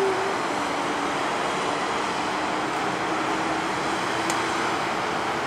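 Jet airliner engines heard from a distance as a steady rushing noise with a faint steady hum, as the aircraft rolls along the runway after landing.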